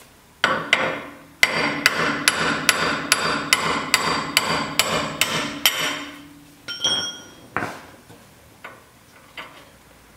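Hammer striking a steel punch held against a damaged wheel stud to drive it out of the front hub: a rapid run of about a dozen sharp, ringing metal-on-metal blows, a little over two a second, followed by a few lighter metallic clinks and taps.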